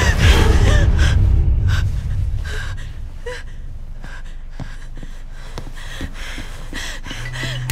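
A woman gasping and panting hard, short breaths repeating roughly every half second to a second. A loud low drone underneath fades out about two seconds in.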